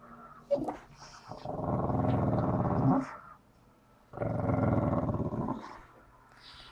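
Staffordshire bull terrier cross dog making two long, throaty growling noises of about a second and a half each, with a short gap between, eager for a ball stuck out of reach behind the sofa.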